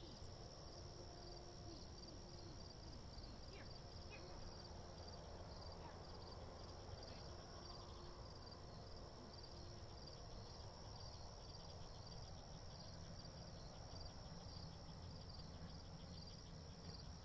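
Evening insect chorus, crickets chirping steadily in a regular pulsing rhythm, over a faint low outdoor rumble.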